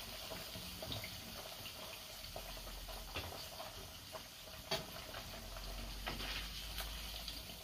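Chicken drumsticks deep-frying in hot oil in a frying pan, a steady bubbling sizzle during the first of two fryings for Korean-style fried chicken. A few light clicks sound over it, the strongest a little past halfway.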